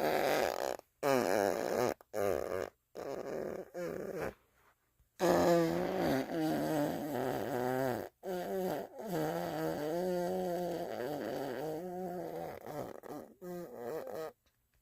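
A run of fart sounds, one after another with brief silent gaps between them. The longer ones are drawn out and rasping, their pitch wobbling up and down.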